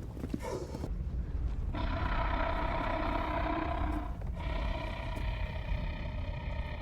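Sound-designed dragon vocalization from a TV drama: two long, steady roars one after the other over a deep rumble, the second beginning about four and a half seconds in.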